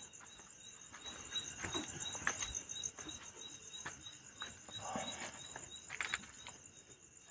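Crickets chirring steadily in a high, finely pulsing trill, with scattered soft scuffs and clicks of footsteps in sandals on dirt.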